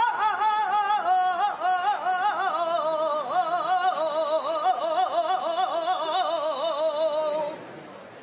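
A saeta sung solo and unaccompanied: one voice holding long, wavering, heavily ornamented flamenco-style phrases. The phrase ends about seven and a half seconds in.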